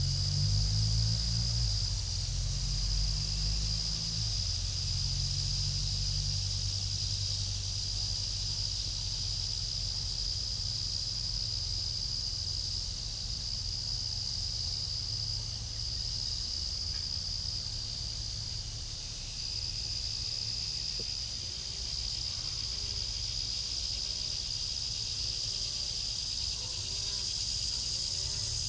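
Dusk insect chorus: a steady, high-pitched buzzing trill that dips briefly now and then, over a low rumble. The rumble carries a shifting hum in the first several seconds. Faint short calls repeat near the end.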